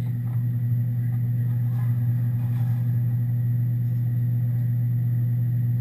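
Steady low mechanical hum of a running motor, unchanging throughout.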